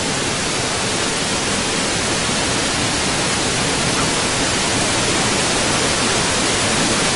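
Loud, steady hiss of static-like noise dubbed over the soundtrack as an editing overlay, blanking out the original audio.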